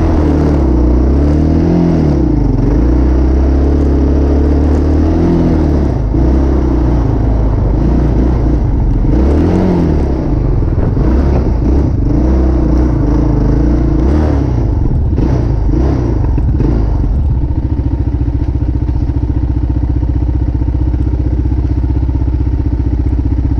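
A vehicle engine heard close up, rising and falling in speed as it drives, with a few bumps and rattles. About two-thirds of the way through it settles to a steady idle.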